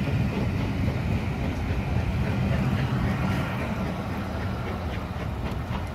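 Passenger coaches of a steam-hauled train rolling past on the track: a steady low rumble of wheels on rail, with a few light clicks in the second half as the last coach goes by.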